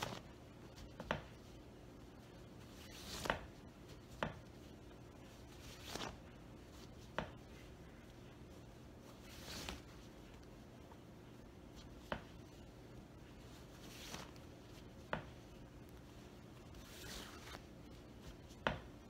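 Cotton sheet strips being hand-woven over and under the warp of a wooden frame loom for a rag rug: soft swishing and rustling as the fabric is pulled through, with light sharp knocks every second or two, over a faint steady low hum.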